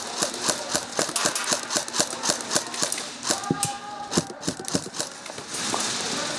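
Running footsteps with gear rattling, about four even steps a second, giving way to a steadier rushing noise near the end.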